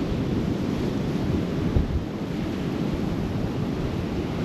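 Atlantic Ocean surf washing onto the beach, mixed with wind buffeting the microphone in a steady, low rumbling noise.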